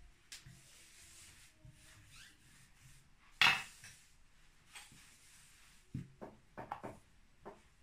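Thin wooden rolling pin knocking against a wooden tabletop as it is set down and handled: one louder clack about three and a half seconds in, then several lighter taps near the end, with faint rubbing of hands on floured dough between.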